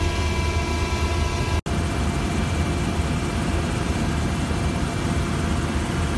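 Helicopter cabin noise: a steady, loud drone of engine and rotor with high whining tones over it, broken by a split-second dropout at an edit about a second and a half in.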